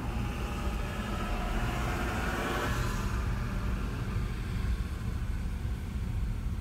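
Low steady rumble inside a car waiting in stop-and-go traffic, with a higher hiss and hum over it that fades out about three seconds in.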